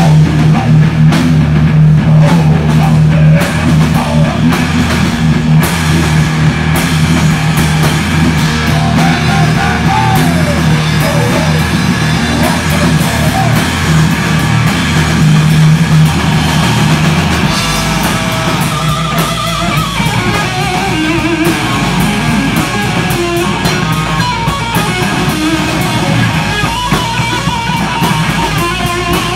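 Live hard rock band playing loud distorted electric guitars and a drum kit. A heavy held low note gives way about 18 seconds in to a thinner passage with bending guitar notes.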